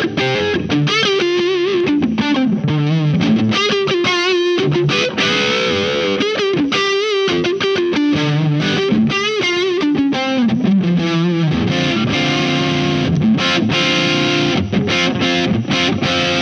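Electric guitar with humbucker pickups played through the distortion (Hyde) side of a Visual Sound Jekyll & Hyde V1 pedal: distorted single-note lines and held chords, stopping right at the end.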